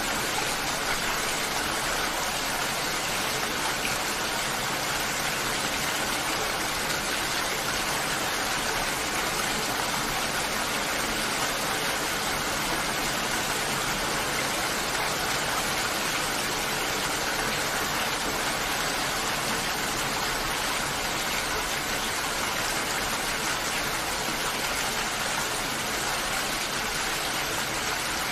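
Steady rainfall: an even, unbroken hiss of rain.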